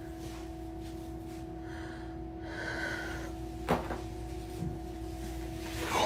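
Chiropractic adjustment: after a short hiss, one sharp joint crack a little past halfway, then a fainter pop, over a steady hum.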